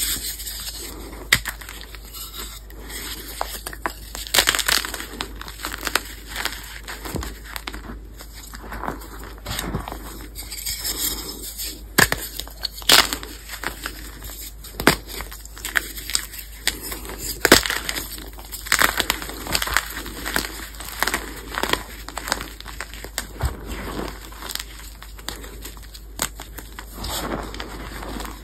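Pasted gym chalk blocks being squeezed and crushed by hand. The blocks, still hard under their soft paste coating, crunch and crack as they break apart, with many sharp snaps at irregular intervals and powdery crumbling in between.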